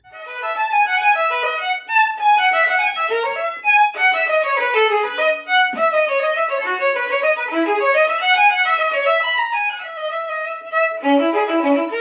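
Solo violin played with a bow: fast runs of notes, broken by a few brief pauses.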